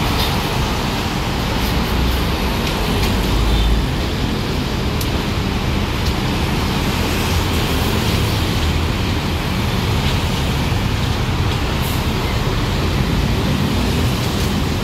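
Busy road traffic: a steady mix of bus, car and motorbike engines and tyres. There is a deep engine rumble in the first few seconds as a light dump truck passes close below.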